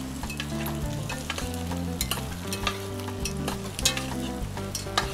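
Onions, garlic, peppers and tomatillos frying in hot oil in a pot, sizzling steadily with scattered sharp pops and crackles.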